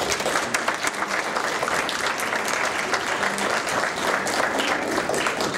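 An audience applauding, many people clapping together in a steady, dense patter.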